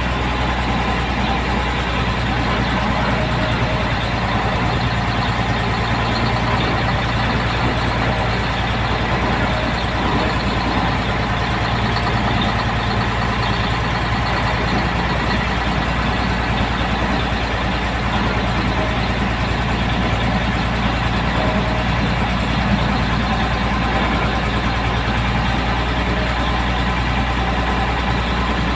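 Truck engine running steadily, an even low drone that holds the same pitch throughout.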